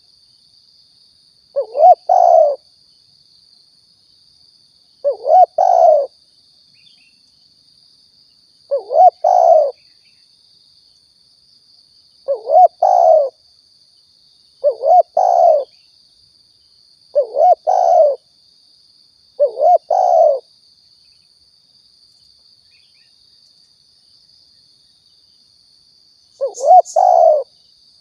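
Spotted dove cooing: a short multi-note coo repeated eight times, every two to three and a half seconds, with a longer pause before the last call. A faint steady high-pitched whine runs underneath.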